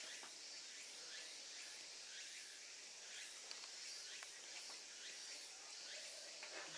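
Faint outdoor insect chorus: a steady high hiss that pulses evenly a few times a second, with a few soft ticks.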